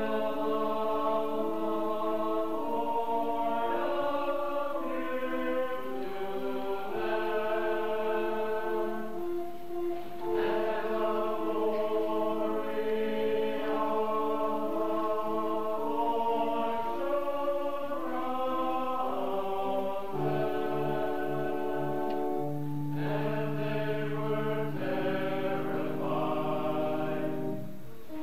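A choir singing a hymn, the held notes moving in steps; a lower part comes in about twenty seconds in.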